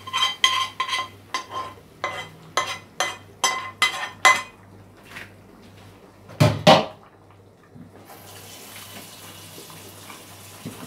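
A metal utensil scraping and knocking fried beef out of a frying pan into a pot, sharp ringing clicks about three times a second for the first four seconds. One loud low knock comes about six and a half seconds in, then a steady soft hiss.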